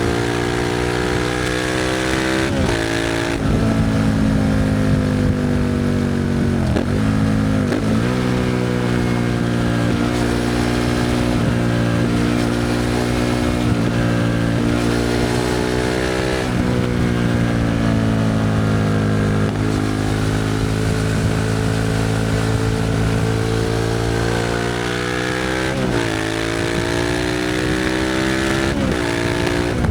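Suzuki SV650's V-twin engine through a Leo Vince exhaust, running under way with its pitch slowly rising and falling as the throttle is opened and eased. Quick sharp drops in pitch come a few times, near the start, around the middle and near the end, at gear changes.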